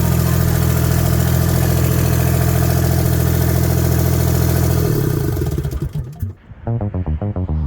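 Gehl 4640 skid steer's Deutz diesel engine running steadily, then shut off about five seconds in and winding down to a stop. Electronic music starts just after.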